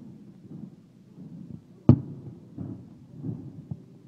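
Aerial fireworks shells bursting: one sharp, loud bang about two seconds in and a fainter one near the end, over a low rumble of further bursts.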